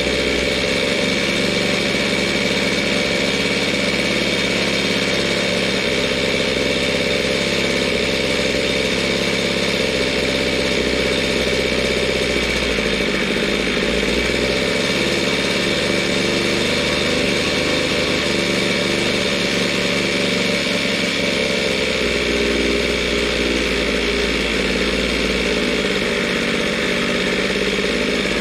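Zenoah G23LH 23cc two-stroke engine with a high-compression head kit, running at a steady idle through its chrome expansion-chamber pipe. It is freshly started on race fuel, and its idle air has just been adjusted.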